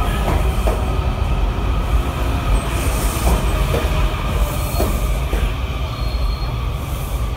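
Washington Metro subway train running alongside the platform as it slows into the station: a steady low rumble with a thin whine from the wheels over it, easing slightly toward the end.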